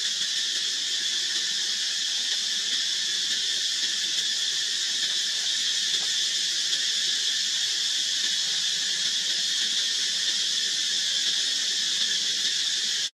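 Steady, high-pitched drone of a chorus of insects such as cicadas, unbroken until it cuts off suddenly near the end.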